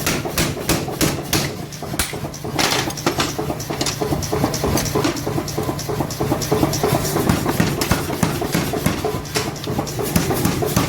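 Rapid, regular hammer strikes on metal, about three a second, over a steady motor hum, as in forging.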